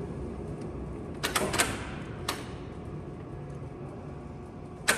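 Large LeBlond engine lathe headstock controls being worked by hand: sharp metal clacks of levers and selectors, a quick cluster about a second and a half in, one more a little later, and a loud clack near the end, over the steady low hum of the machine.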